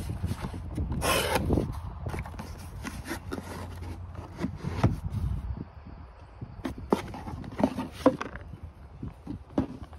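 Cardboard shipping box being opened and handled by hand: flaps scraping and rustling, with a longer, louder scrape about a second in and a cluster of knocks and scrapes near the end as the contents are pulled out.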